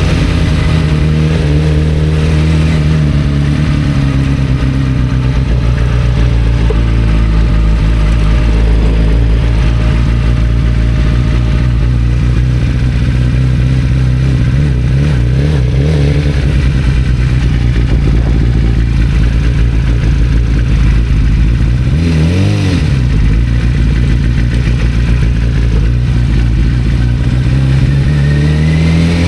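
1991 Kawasaki ZZR-400's inline-four engine running while the bike is ridden. The revs hold fairly steady, dip and come back about 22 seconds in, then climb near the end as it accelerates.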